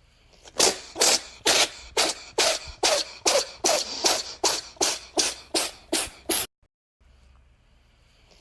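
A cat sneezing in a rapid fit: about fourteen short, sharp sneezes, roughly two a second, that cut off abruptly about six and a half seconds in.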